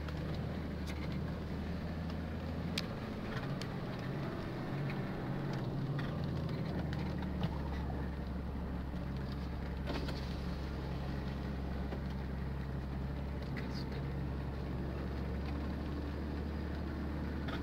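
Off-road 4x4's engine running steadily at low speed across rough grassland, heard from inside the cab as a continuous low drone. A few short knocks and rattles come through, the clearest about 3, 7 and 10 seconds in.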